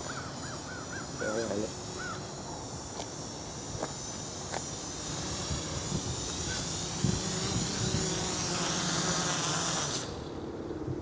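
GAUI 330X-S quadcopter's electric motors and propellers whining with a steady high tone, growing louder as it comes in to land on a dead battery, then cutting off suddenly about ten seconds in as the motors stop.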